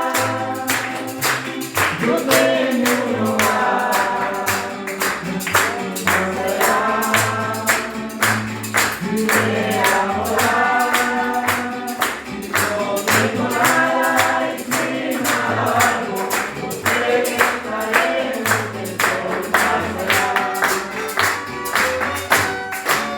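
Christian worship music played on violins with bass, a steady tambourine beat and singing.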